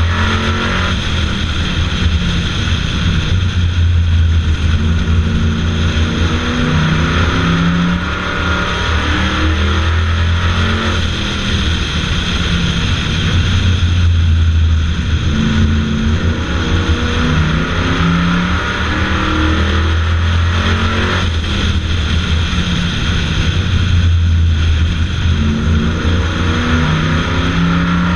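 Bomber-class stock car engine at racing speed, heard from a camera on the car. The engine note climbs as it accelerates and drops as it lifts for the turns, over and over about every ten seconds, lap after lap.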